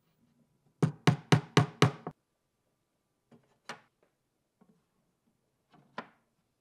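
Five quick hammer taps, about four a second, driving a wooden dowel into a hole in a plywood drawer bottom. A few single lighter clacks follow as steel circular saw blades are set down over the dowel pegs.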